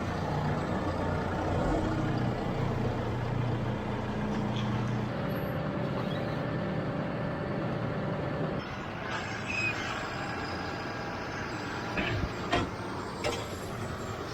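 Farm machine engine running steadily. About two-thirds of the way through the sound drops and changes, and there are a few short knocks near the end.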